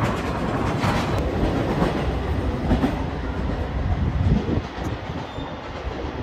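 Limited express train running on its rails: a steady rumble with a few faint knocks.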